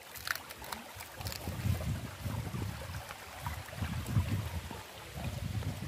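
Wind buffeting the microphone in irregular low rumbling gusts, over faint water trickling along a concrete channel.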